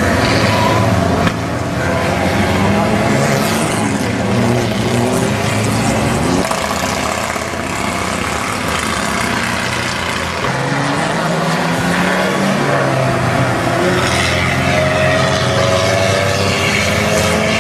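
Vintage racing car engines running hard, rising and falling in pitch as the cars accelerate out of a corner and change gear.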